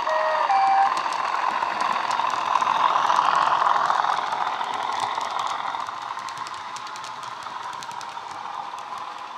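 Bachmann Class 37 model's DCC sound decoder playing a Class 37 sound file through its onboard speaker: a short two-tone horn blast, low note then high, then the diesel engine sound swelling as the locomotive passes and fading as it draws away. Light clicking of the model coaches' wheels on the track follows as the train rolls by.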